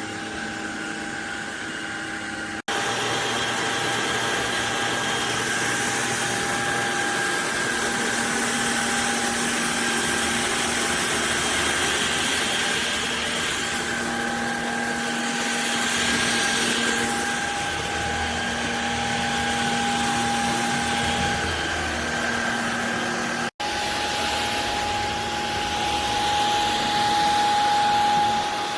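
CHEBIO cordless stick vacuum running with a steady high motor whine and a rush of air. The sound drops out for an instant twice, once near the start and once about three-quarters of the way through.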